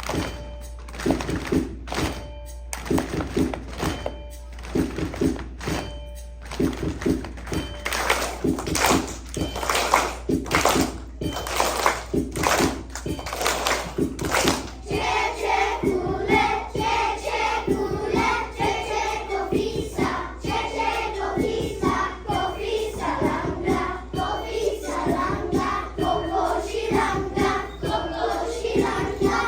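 Backing music with a steady beat and rhythmic claps, then a group of young children singing together from about halfway through.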